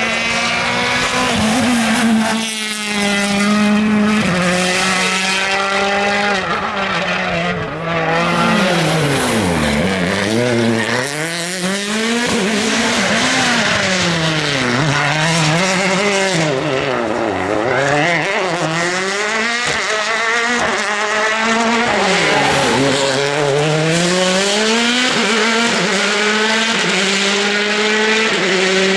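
World Rally Car's 1.6-litre turbocharged four-cylinder engine at full effort on a rally stage, its pitch falling sharply under braking and climbing again on acceleration several times through a run of corners, between stretches held at steady high revs.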